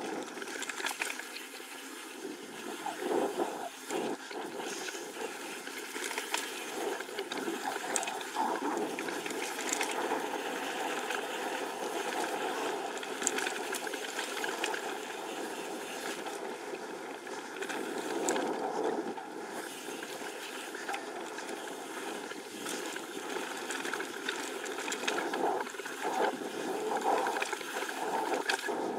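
A mountain bike rolling fast down a dirt singletrack: steady tyre and trail noise with frequent small rattles and clacks from the bike over bumps and roots.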